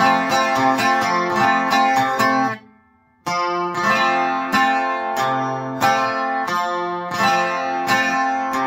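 12-string acoustic guitar strummed in a rolling 6/8 rhythm, each bar a bass note followed by down-strums. The playing stops briefly about two and a half seconds in, then picks up again.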